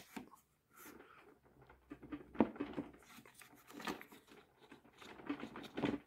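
Plastic caster wheels being forced into their sockets in the plastic base of a portable evaporative air cooler: a few separate knocks and clicks with light handling noise between them, the loudest about two and a half seconds in.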